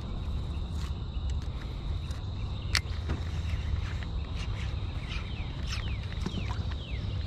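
Birds calling with short falling notes, many times, over a steady low rumble and a thin steady high tone, with one sharp click just under three seconds in.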